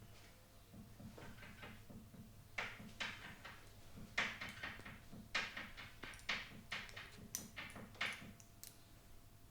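A barber's hands striking a client's face and head during massage: an irregular run of about a dozen sharp slaps and pats, starting a couple of seconds in, some much louder than others.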